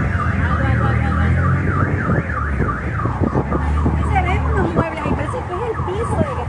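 A car alarm sounding: a fast up-and-down electronic warble, about five sweeps a second. Voices call out over it in the second half.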